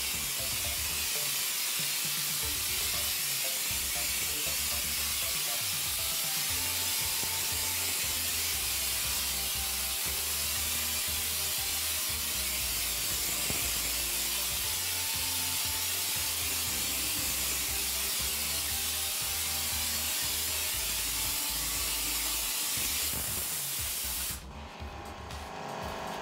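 Compressed-air hopper spray gun hissing steadily as it sprays rough cement render onto a wall, cutting off abruptly about 24 seconds in. Background music plays under it.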